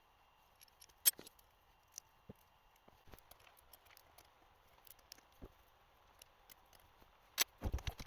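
Scattered light metallic clicks and clinks of tools and steel parts being handled, with a sharp click about a second in and a louder run of knocks near the end.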